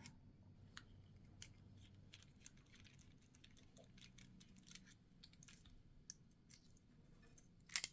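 Faint, scattered small metal clicks and ticks from an American Lock 1100 padlock being handled and taken apart, with a louder cluster of clicks near the end.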